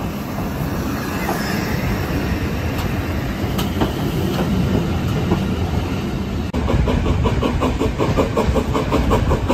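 Steam locomotive LNER A4 No. 4498 running past close by on the adjacent track, a steady heavy rumble of wheels. About six and a half seconds in it cuts to a rapid, rhythmic clickety-clack of carriage wheels over rail joints, heard from the open window of a moving steam-hauled train.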